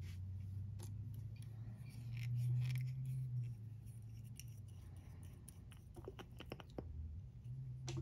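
Small clicks and a brief scrape of nail-stamping tools being handled on a metal stamping plate, with a quick run of clicks about six seconds in, over a low steady hum.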